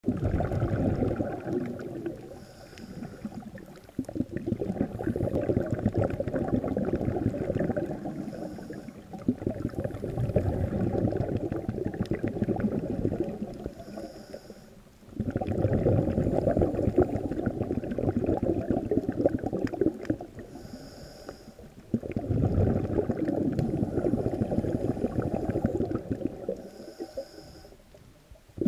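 Muffled underwater bubbling and crackling, dull and cut off above the middle range, as heard through an underwater camera housing. It comes in long stretches of several seconds, each broken by a brief quieter gap.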